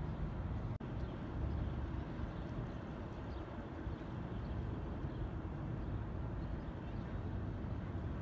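Downtown city ambience: a steady wash of traffic noise.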